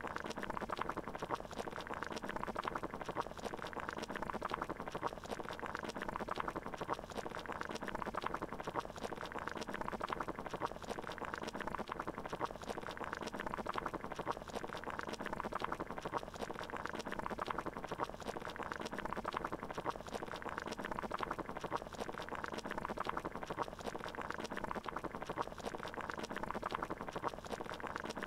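Water bubbling at a steady rolling boil, an even, unchanging bubbling with no rhythm or pauses.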